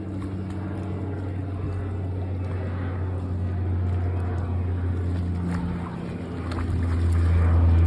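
A low, steady engine hum that grows louder near the end.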